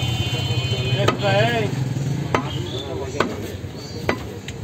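Heavy butcher's cleaver chopping beef on a wooden log chopping block: about five sharp chops at uneven intervals, roughly a second apart.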